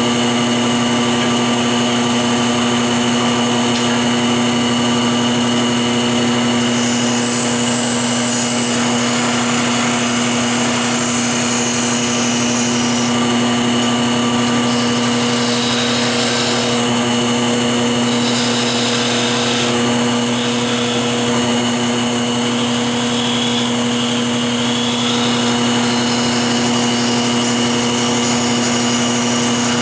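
Wood lathe running with a steady motor hum while a turning tool cuts the spinning hickory, the shaving hiss swelling and easing in stretches through the middle.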